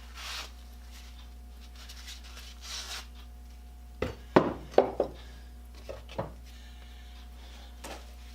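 A handful of sharp knocks and clicks from objects being handled and set down on a workbench, clustered about four to five seconds in with a few more later, over a steady low electrical hum.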